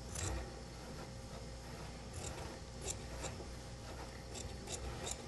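Large tailor's shears cutting through cotton shirt fabric, the blades closing in several crisp snips at irregular intervals as the shoulder line of a dress shirt is trimmed.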